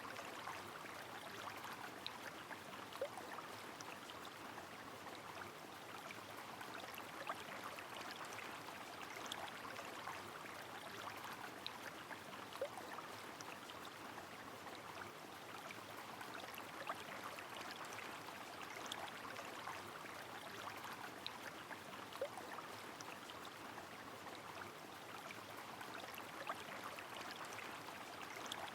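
Rain falling by a flowing river: an even wash of running water, with scattered single drops ticking through it.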